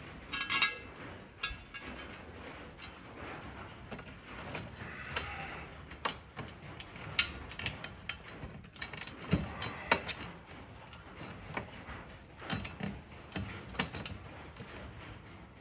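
Scattered metallic clinks and knocks as steel plow-mount brackets and bolts are handled and fitted under the front of a UTV, with a ringing clink about half a second in.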